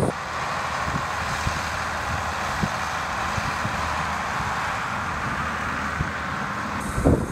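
John Deere 4440 tractor's six-cylinder turbo diesel running steadily as the tractor drives slowly across the snow. Near the end, loud low buffeting hits the microphone.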